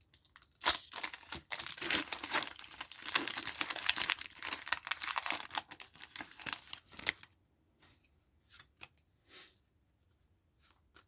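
Pokémon booster pack packaging being torn open: dense crinkling and tearing of the foil wrapper and sleeve for about six seconds, then only a few faint rustles of handling.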